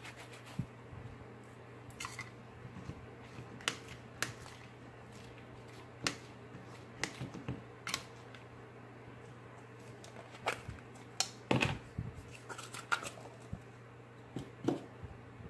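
A plastic spoon clicking and scraping against a bowl while slime is stirred, with scattered taps and clicks from handling, busiest a little past the middle. A steady low hum runs underneath.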